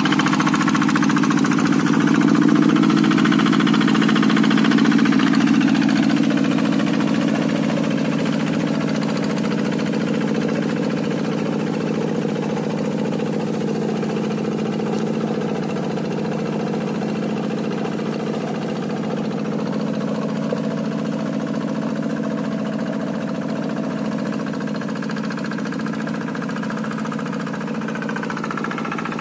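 Quick G1000 hand tractor's single-cylinder diesel engine running steadily while plowing a rice paddy, a little quieter after about six seconds.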